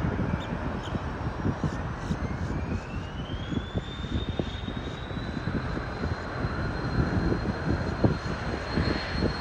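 Jet aircraft engines spooling up: a thin whine rises over about two seconds, then holds steady and high above a constant low rumble.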